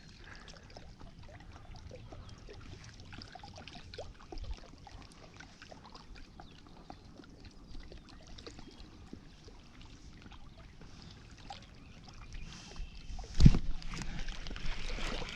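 Faint lapping of water at a lake bank with small scattered ticks, then one loud sudden thump about thirteen seconds in, followed by louder rustling noise to the end.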